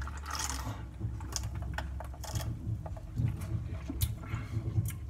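A sip of soda drawn through a straw, a short hiss at the start, followed by a few scattered soft mouth clicks and lip smacks as the drink is tasted.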